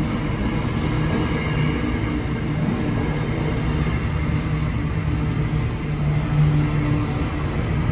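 Container wagons of a freight train rolling past: a steady rumble of steel wheels on the rails.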